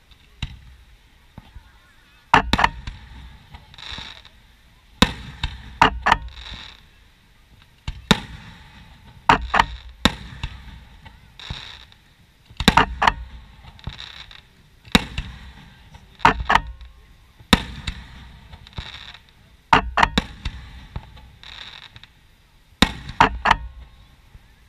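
Aerial firework shells bursting: sharp bangs every one to three seconds, often two or three close together, each followed by a rumbling echo.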